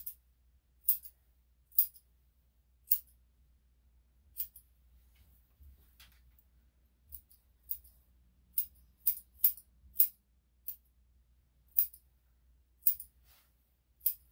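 Steel grooming scissors snipping fur on a small dog's hind foot: about sixteen crisp single snips at uneven intervals, roughly one a second, with a quicker run of four snips about two-thirds of the way through.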